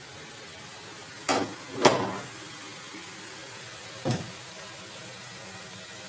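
A pair of closet doors being pushed shut: two knocks close together about a second and a half in, the second the loudest, then one more knock around four seconds in.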